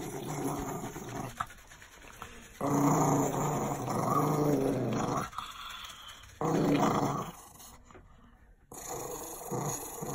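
Small terrier growling in long, drawn-out growls: an angry protest at being bathed and shampooed. The loudest growl lasts nearly three seconds, starting about a quarter of the way in, and a shorter loud one follows after a brief pause, with quieter growls at the start and near the end.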